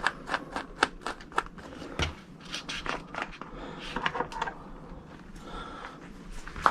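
Hands working on a bicycle wheel, tyre and valve while refitting it after sealant goes in: irregular sharp clicks and taps, several in the first two seconds, with rubbing and rustling between them.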